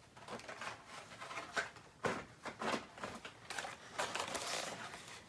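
Blister-packed toy cars on card backings rustling and clicking as they are handled and pulled from a cardboard box, with irregular plastic and card rustles that get louder about two seconds in and again around four seconds in.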